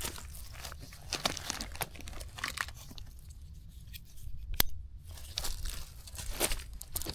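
Dry grass and thin dead twigs crackling and tearing as they are handled, in irregular crunchy bursts, with one sharp snap about four and a half seconds in.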